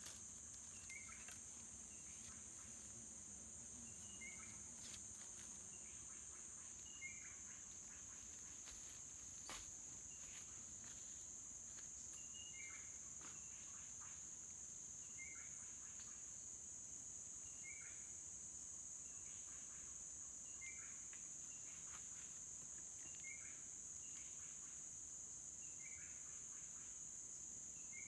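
Steady high-pitched drone of insects such as crickets, with short higher chirps repeating every second or two.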